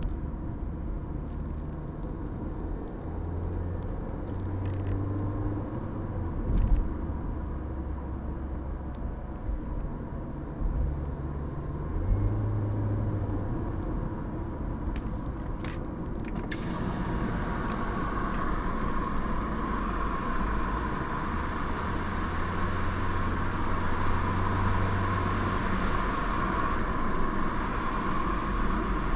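2003 Audi A4 1.8T under way, heard from inside the car: steady engine and road rumble with a thin, steady high squeal over it. The squeal comes only while driving and not when the engine is revved in neutral. About halfway through, the squeal and the road and wind noise get much louder as the windows are down.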